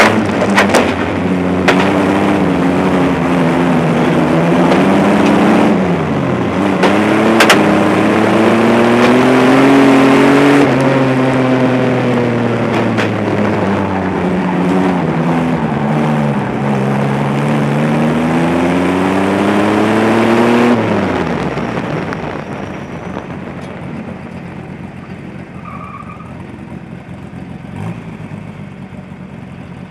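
A stockcar's engine heard from inside the cockpit, rising and falling in pitch again and again as the throttle is worked through the laps, with a few sharp knocks in the first seconds. About two-thirds of the way through the throttle is lifted and the engine drops to a much quieter, low steady running.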